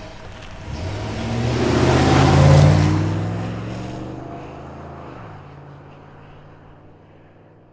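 Sound effect for an animated logo: a whoosh that swells to a peak about two and a half seconds in, over low steady tones, then fades away slowly.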